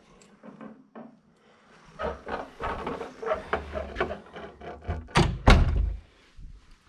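A run of irregular knocks and thuds, with two loud thumps about five seconds in.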